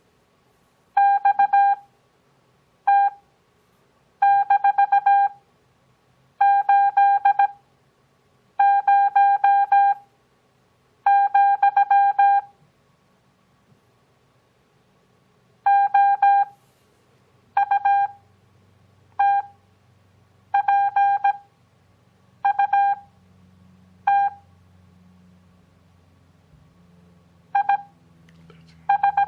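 Morse code practice tone, a pitched beep near 800 Hz keyed in quick dots and dashes. The characters are sent fast (17 WPM character speed), with long Farnsworth gaps of about a second between them for a 6 WPM overall pace, and a longer break near the middle.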